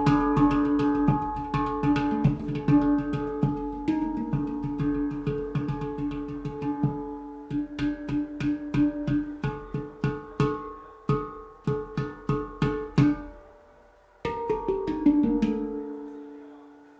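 Golden Sound handpan in Pygmy tuning struck with the fingers: a quick run of ringing metallic notes, then a brief pause about fourteen seconds in and a last few notes left to ring out and fade.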